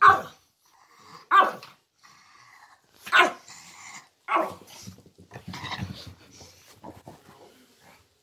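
Pekingese dogs barking in excited greeting when the family comes home: four loud, short barks over about four seconds, then a few seconds of quieter, rougher noises.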